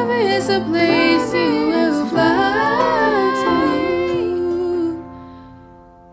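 Vocal music: singing that glides between notes over steady held accompaniment, ending about five seconds in and letting the held notes die away.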